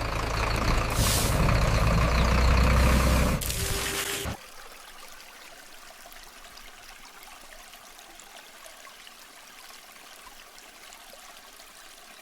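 Heavy truck engine running with a low rumble, with a short air-brake hiss about a second in and a longer one near four seconds. The sound then cuts off suddenly, leaving only a faint steady hiss.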